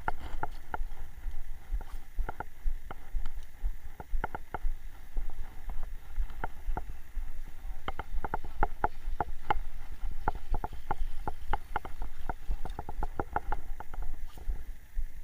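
Irregular light clicks and knocks, a few a second at their busiest, over a low rumble.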